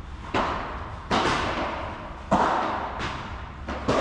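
Padel rally: the ball is struck by the rackets and bounces, making about five sharp pops roughly a second apart. Each pop leaves a long echo under the court's roof.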